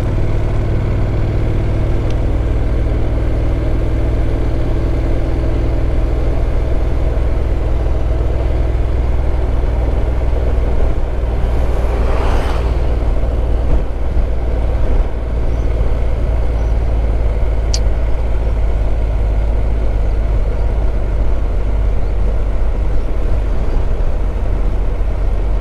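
Honda NC750X's parallel-twin engine running steadily at cruising speed, with wind and road noise. About twelve seconds in, an oncoming minibus passes with a brief rising and falling rush.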